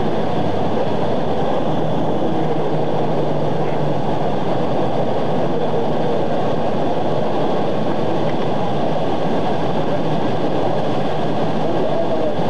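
Steady, even rumble and hiss of an idling police patrol car, picked up by its dash camera inside the cabin.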